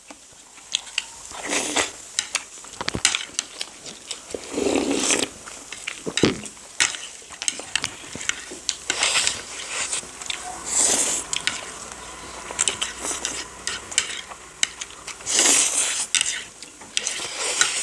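Eating sounds at the table: cutlery clicking and clinking against plates and bowls throughout, with a few louder slurps of noodles and soup.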